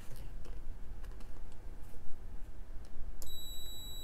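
Small clicks and taps of multimeter probe tips being worked into the pin holes of plastic ribbon-cable connectors, then, a little over three seconds in, the multimeter's continuity beeper sounds a steady high beep. The beep shows that the two probed pins are connected, here the joined ground pins of the floppy cable.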